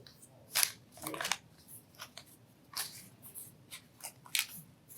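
Sheet of origami paper rustling and crinkling in short irregular bursts as it is folded and creased into a reverse inside fold.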